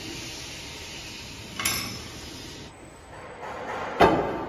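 Steel line-boring bar and its bearing assembly clinking and knocking against the steel lug bores as they are slid into place: a light metal clink about one and a half seconds in, and a heavier ringing clank near the end.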